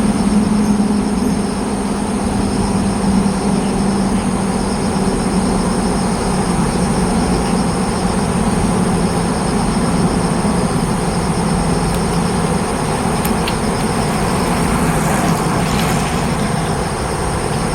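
Steady outdoor background rumble, with a thin constant high whine and a faint, evenly pulsing hiss above it; no bird calls stand out.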